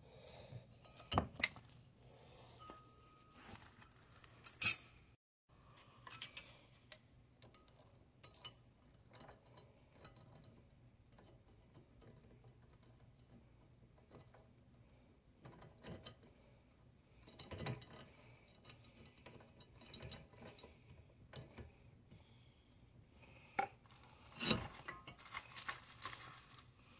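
Scattered metallic clinks and taps of steel bolts, nuts and heim joints being handled and fitted by hand on a golf cart's A-arm lift kit. The loudest clink comes about four and a half seconds in, and a denser run of clatter comes near the end.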